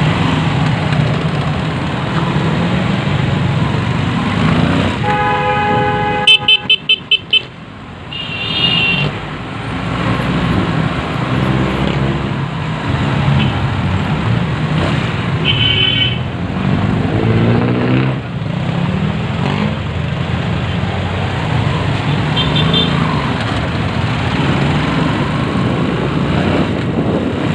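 Motorcycle riding in city traffic: steady engine and road noise, with vehicle horns honking around it. A long horn blast about five seconds in is followed straight away by a quick run of short, loud toots, and short high beeps sound three more times later. The engine pitch rises twice as the bike speeds up.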